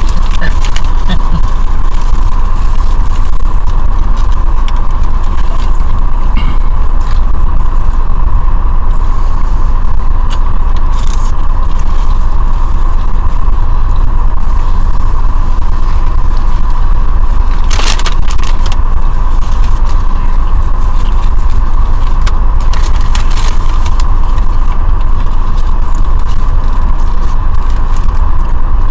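A loud, steady low rumble with a constant hum, a few short clicks and rustles on top, one stronger about two thirds of the way through.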